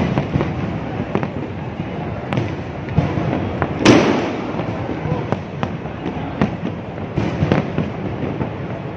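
Aerial fireworks bursting overhead: an irregular run of sharp bangs, several a second at times, with the loudest, heaviest bang about four seconds in.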